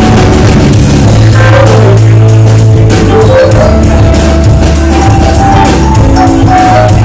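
Live rock band playing loudly: a steady drum-kit beat with bass, electric guitar and keyboard.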